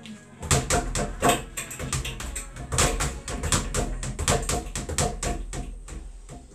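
Speed bag being punched on a wall-mounted platform, a fast run of rattling hits, about five a second, starting about half a second in.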